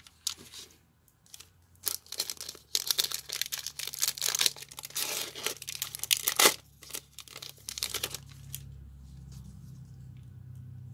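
Pokémon booster pack's foil wrapper being torn open and crinkled, a dense run of crackling tears lasting about five seconds. Then softer handling of the cards, over a low steady hum that comes in near the end.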